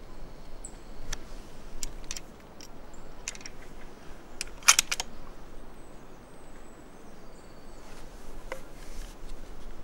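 Scattered sharp clicks and ticks over a quiet outdoor background, the loudest a quick cluster of clicks about halfway through.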